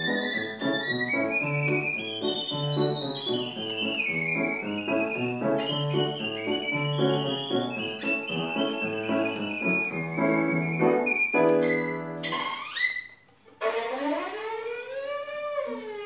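Violin and piano duo playing a lively classical piece: a high violin melody over rhythmic piano chords. About twelve seconds in, the piano drops out and the violin slides up, pauses briefly, then plays alone in a long glissando that swoops up and back down.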